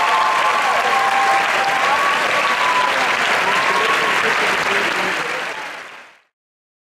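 Audience applauding, with a few voices cheering over it; the applause fades out near the end.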